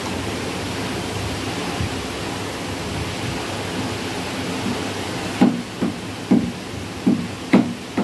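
A butcher's heavy knife chopping mutton on a wooden chopping block: a run of about five short knocks, roughly two a second, starting about five seconds in. Under it is a steady hiss.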